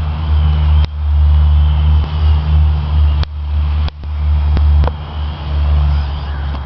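Exceed RC Eagle 50 RC helicopter with its upgraded brushed electric motor in flight: a faint high motor whine rising and falling under a heavy rumble of rotor wash and wind on the microphone. Several sharp clicks, including two close together about two-thirds of the way in.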